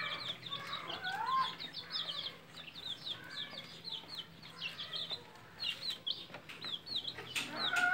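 Chicks peeping in a steady stream of short, high, falling notes, several a second, with a hen clucking now and then underneath.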